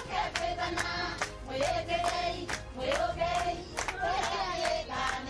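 A group of voices singing together in unison, with steady rhythmic hand clapping keeping the beat.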